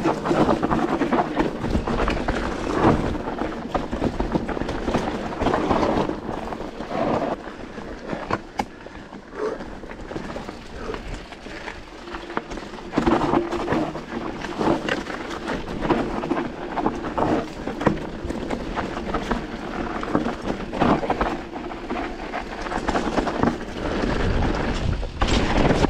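Mountain bike ridden over rough trail: wind rumbling on the microphone and the bike rattling and knocking over the bumps, the noise swelling and easing as the ground changes.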